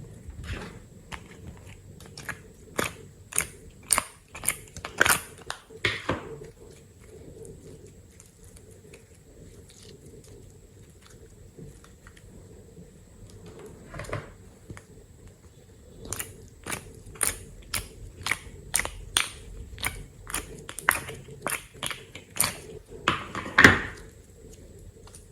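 Slime being worked by hand, giving sticky clicks and crackles in two spells, with a quieter stretch in between.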